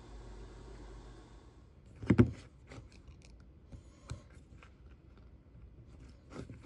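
Metal parts handled on a workbench: one sharp clunk about two seconds in, then scattered light clicks and taps. Before that, a low steady hum cuts off.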